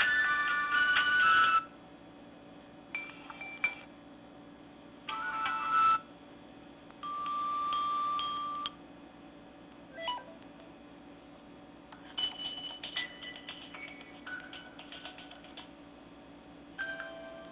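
Nokia E5 ringtones and alert tones played on a Nokia 130's small speaker, one short snippet after another: a melodic ringtone ends about a second and a half in, then brief electronic chimes and beeps, one a steady held tone, each a second or two long with short quiet gaps between.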